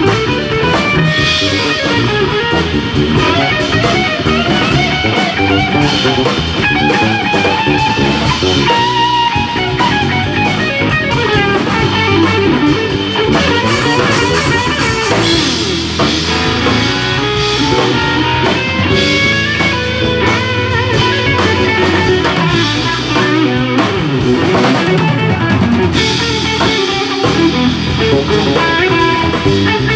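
Live jazz band playing: electric guitar to the fore over bass and drum kit.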